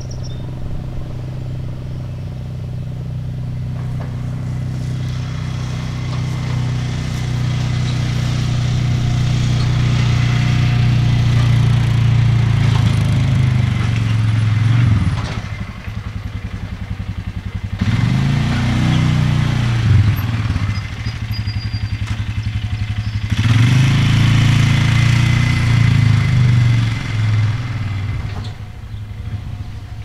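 Sentry 3V8 electromechanical warning siren winding down at the end of its steady alert signal: a low droning tone that dips and wavers in pitch. It swells louder and fades again in several surges, the strongest about halfway and near the end.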